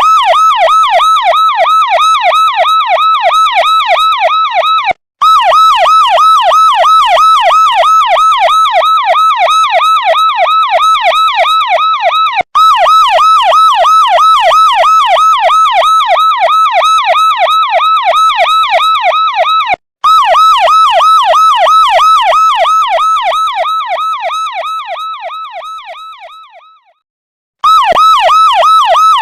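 Police siren in a fast yelp, its pitch sweeping up and down about four times a second. It cuts out briefly three times, then fades away over several seconds to silence and starts again near the end.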